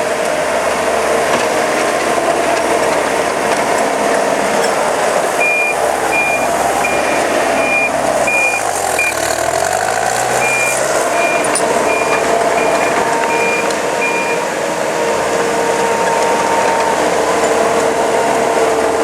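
Gehl CTL80 compact track loader's 97-horsepower diesel engine running while the machine works. Its backup alarm beeps about twice a second from about five seconds in until about fourteen seconds, with a short break in the middle. The engine note dips and comes back up partway through, as if loaded.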